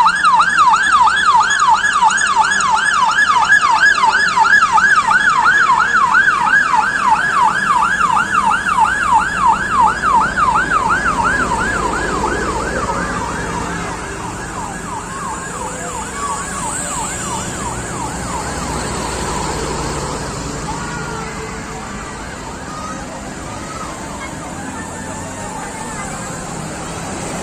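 Escort vehicle's siren wailing in a fast yelp, sweeping up and down about four times a second. It fades out after about twelve seconds, leaving the steady noise of passing traffic.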